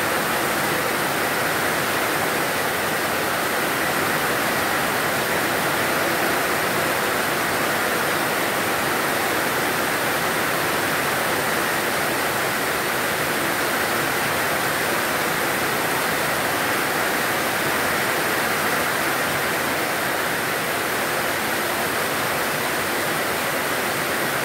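Torrential tropical rain pouring down steadily, with water streaming off the edge of a roof.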